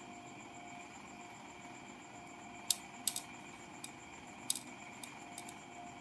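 Several sharp clicks and taps of small hard parts being handled, about seven in a few seconds, starting about halfway in, over a steady faint electrical whine.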